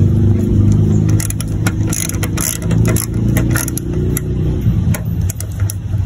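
A car engine running steadily with a low hum, under irregular sharp clicks and scrapes from a screwdriver tightening a screw in a turn-signal housing.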